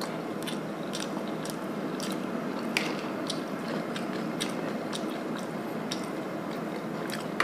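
A person eating instant noodles: chewing and mouth noises with many small clicks of a metal spoon and fork against a plastic bowl, over a steady background hiss.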